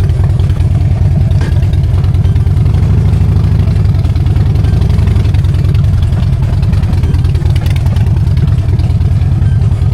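Harley-Davidson Dyna Street Bob's V-twin engine running loud and steady, a deep, fast, even pulsing rumble.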